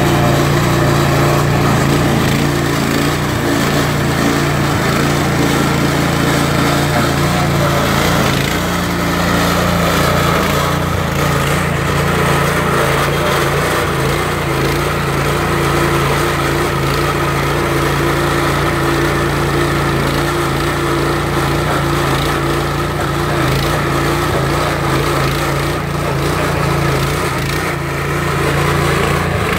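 Lumag walk-behind stump grinder running steadily, its small petrol engine driving the cutting wheel as it grinds a tree stump into wood chips.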